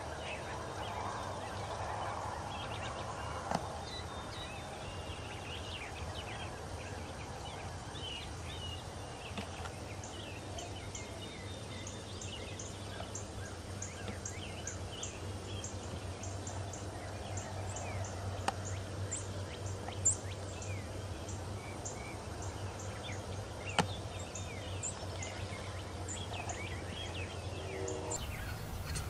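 Wild turkeys calling, with gobbling and many short calls scattered through, over a steady low hum. A few sharp clicks stand out.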